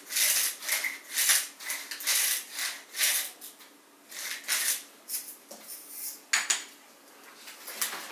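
Salt mill being twisted to grind salt: a quick run of short gritty grinding strokes, about three a second, thinning out to a few scattered ones after about three seconds.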